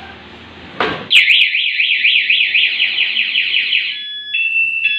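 Motorcycle talking alarm set off: after a click, a loud, fast warbling siren sweeping up and down several times a second starts about a second in. About four seconds in it changes to a steady high beep switching on and off.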